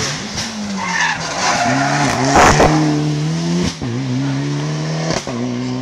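Rally car engine revving hard through a hairpin, its note climbing and then dropping sharply twice in the second half, as at gear changes. There is a loud burst of noise about two and a half seconds in.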